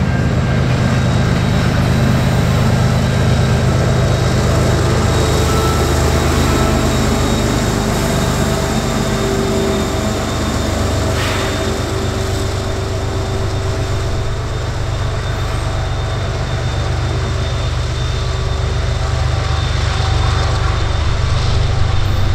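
Freight train rolling past with the steady low drone of a diesel locomotive working as a rear helper, shoving the train along, over the rumble of the cars' wheels on the rails.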